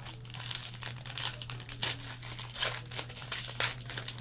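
Plastic wrapping crinkling and tearing in irregular crackles as a sealed trading-card box or pack is opened, over a steady low electrical hum.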